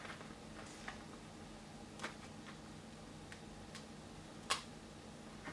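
Faint, scattered clicks and taps as hands work paper bills into a flexible-filament 3D-printed wallet, about half a dozen of them, the loudest about four and a half seconds in.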